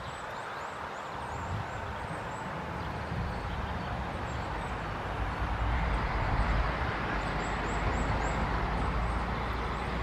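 Steady rushing outdoor background noise with a low rumble that builds after about five seconds, and faint, very high, thin chirps repeating in the second half.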